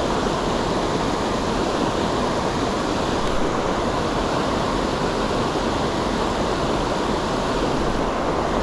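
Rushing creek water: a steady, even noise.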